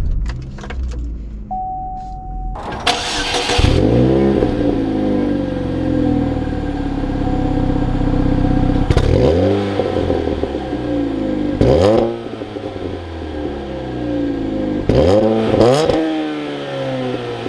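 A 2007 Chevy Cobalt SS's supercharged four-cylinder is started: a short beep, then the starter cranks briefly and the engine catches with a rise in revs. It settles to idle and is revved in quick throttle blips about four times.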